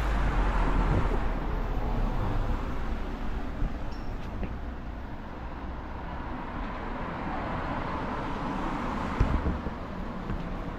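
Street traffic noise: a vehicle passing close at the start, its noise easing off over the next few seconds into a steady background hum, with a short knock about nine seconds in.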